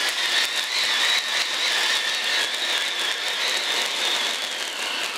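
Taiwan cold pyro (cold spark fountain) firing: a steady, loud hissing rush with a high whistling tone and light crackle. Near the end its pitch drops and it begins to die down as the charge burns out.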